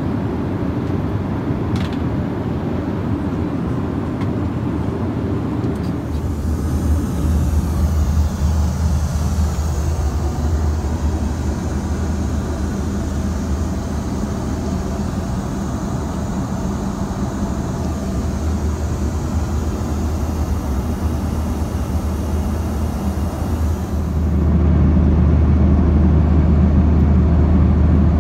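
Cabin noise in a Boeing 737-900 in flight: the steady low drone of its CFM56-7B turbofan engines and rushing air. It steps up abruptly, louder and deeper, about six seconds in and again near the end.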